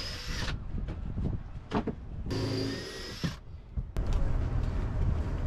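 Cordless drill running in two short bursts of about a second each, a steady high whine, driving screws to fix a wooden hinge piece, with a couple of sharp knocks between the bursts.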